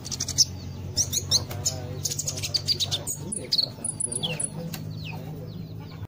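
A small caged songbird chirping in quick, high notes, with fluttering and clicks as it hops about the cage. A low steady hum runs underneath.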